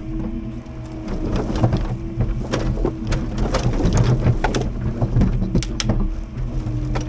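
Timber truck's diesel engine running steadily, with many irregular sharp knocks and clatters over it.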